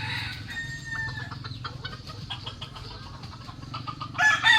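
A rooster crowing loudly, starting near the end, with fainter calls from other chickens earlier.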